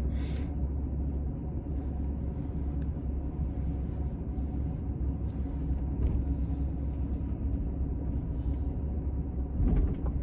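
A car running with a steady low rumble.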